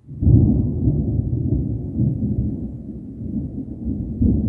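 Thunder rolling: a rumble that sets in abruptly about a quarter second in and goes on with several swells.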